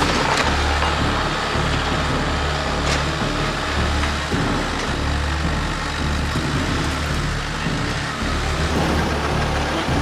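Bobcat T190 compact track loader's diesel engine running as the machine drives and works. The low engine note dips and comes back every second or so, and a couple of metal clanks come through.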